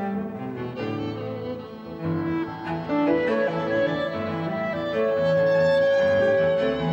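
Orchestral music led by bowed strings, cellos and violins, playing held notes, with one long sustained note near the end.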